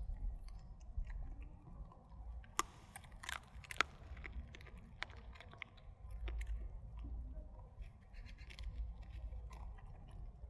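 A dog chewing on a dried duck bone: slow gnawing broken by several sharp crunches of bone, most of them in the first half.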